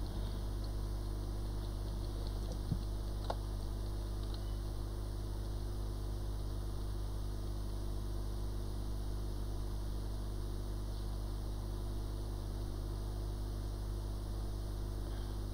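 Hot air rework station blowing steadily over a phone logic board to lift a chip, a constant hum and hiss, with a couple of light clicks about three seconds in.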